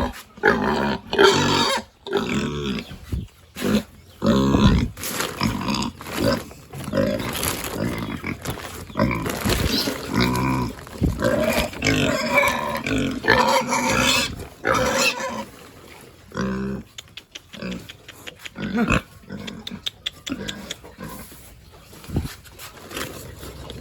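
Pigs squealing, one loud pitched call after another, with sharp knocks in between; the calling thins out over the last few seconds.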